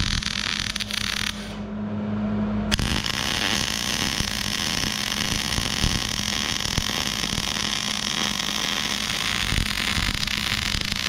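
Wire-feed welder's arc crackling steadily as it lays a bead on a steel bracket. The arc stops about a second and a half in, leaving a low hum, then strikes again just before three seconds in and runs on steadily.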